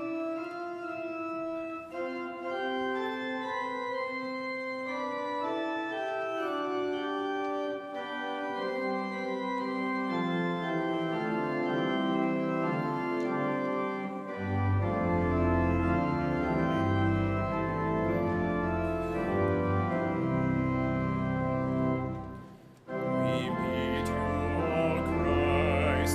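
Slow instrumental hymn music in long held chords. A deep bass line comes in about halfway, and there is a brief break near the end before the chords resume.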